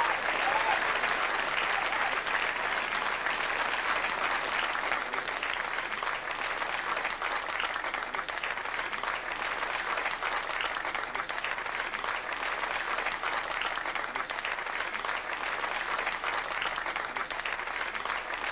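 A large audience applauding steadily, a dense, even clapping that greets an announced guest.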